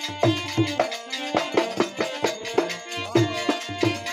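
Instrumental break of a Rajasthani folk bhajan: harmonium playing the melody over a dholak beating a steady rhythm, with hand claps keeping time.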